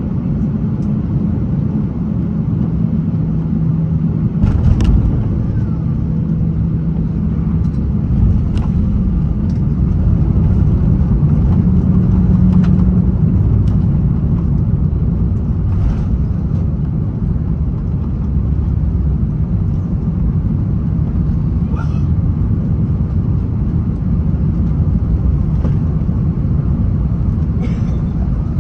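Cabin noise of an Airbus A330-900neo on the ground after landing: a steady low rumble of the idling engines and rolling wheels, with a few faint knocks scattered through it.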